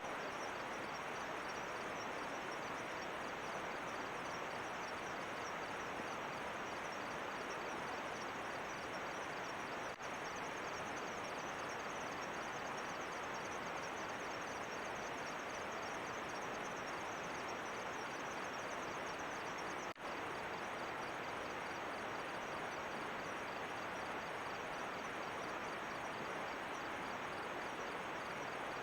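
Night insects, crickets, chirping in a fast, steady pulsing pattern over an even hiss of outdoor background noise. The sound breaks briefly twice, about ten seconds apart, where the recording cuts.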